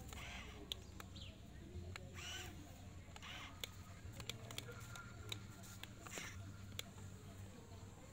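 Birds chirping now and then over a faint low hum, with scattered small sharp clicks.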